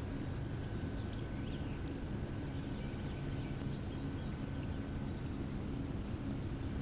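Outdoor river ambience: a steady low rumble with a thin steady high tone above it, and a few short bird chirps a little past the middle.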